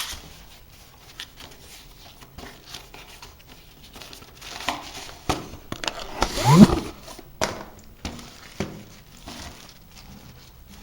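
Tripod packaging being pulled and torn open by hand: scattered rustling, crinkling and knocks. The loudest moment comes about six seconds in, with a short rising squeak.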